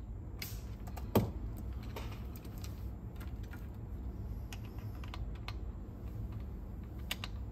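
Light, scattered clicks and taps of a small screwdriver and metal parts as screws are taken out of a cassette deck, with one sharper click about a second in, over a steady low hum.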